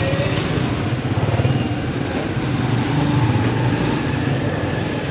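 Small motorcycle engine running steadily at low speed, with the general noise of other motorbikes and traffic in a narrow street.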